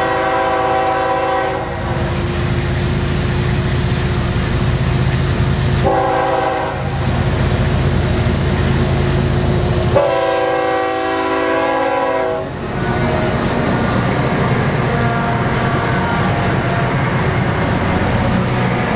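Canadian Pacific GE ES44AC diesel locomotive and its trailing units working hard under load to start a long freight train, the engines giving a heavy rumble. The locomotive horn sounds three times: a long blast at the start, a short one about six seconds in, and another long one about ten seconds in. After that come engine rumble and wheels on rail as the units pass, with a faint high whine in the last few seconds.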